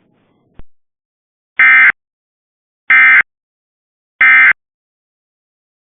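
Emergency Alert System end-of-message (EOM) data tones: three short, loud, identical bursts of warbling digital data, a little over a second apart, signalling the end of the alert. A faint click comes just before them.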